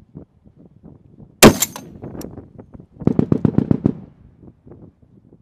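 A single shot from an M107 .50-calibre semi-automatic sniper rifle about a second and a half in: one very loud sharp crack with a short tail. About a second and a half later comes a rapid rattle of about nine quick knocks.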